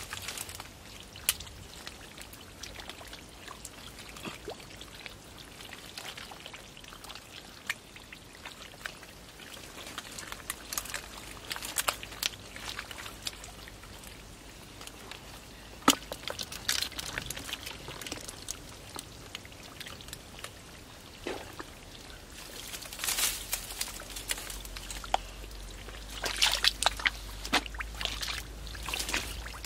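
Muddy water sloshing and splashing in irregular bursts as a man gropes with his hands through a shallow flooded ditch, feeling for fish.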